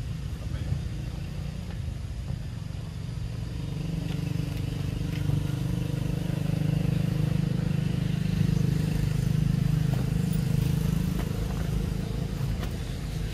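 A motor vehicle's engine running with a steady low hum, growing louder toward the middle and then easing off.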